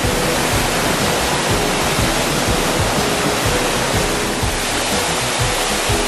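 Waterfall pouring down a granite cliff onto rocks, a loud, steady rush of water, with soft background music faintly underneath.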